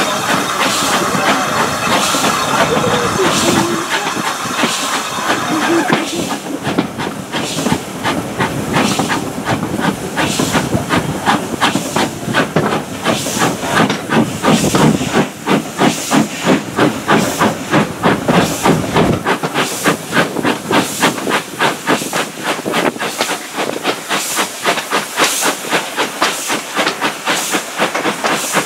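Steam locomotive hauling its train, with a steady hiss of steam for the first few seconds, then a clear regular exhaust chuff of about four beats a second, over wheel noise on the rails.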